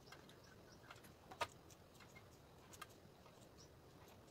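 Near silence broken by a few faint, short clicks and knocks from a knife cutting boiled potatoes held in the hand and pieces dropping into a steel bowl. The clearest knock comes about a second and a half in.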